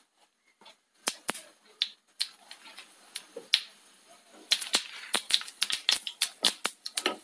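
Mustard seeds spluttering in hot coconut oil during tempering. There is a faint sizzle with a few scattered pops at first. From about four and a half seconds in, the pops come thick and fast as the seeds burst.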